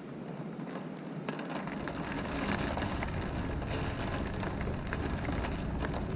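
Wind-driven rain beating on a window: a steady hiss of rain with many sharp drop ticks against the glass. It grows louder about two seconds in, as a low rumble of wind comes in beneath it.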